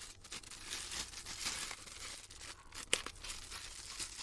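Plastic packaging crinkling and tearing as kit parts are unwrapped and handled, with one sharp click about three seconds in.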